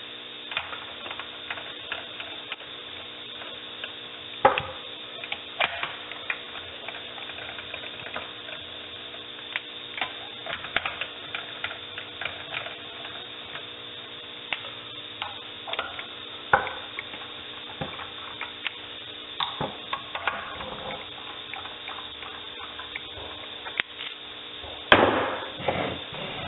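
Hand tools on the valve body bolts of a Dodge 46RE automatic transmission: scattered ratchet clicks and light metal taps over a steady hum. A louder clatter comes near the end.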